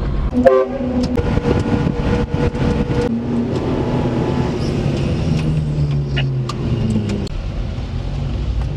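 Daihatsu Hijet mini truck's engine running under way, heard from inside the cab, with scattered rattles and knocks. Its pitch holds, steps down about three seconds in, climbs again and drops suddenly about seven seconds in.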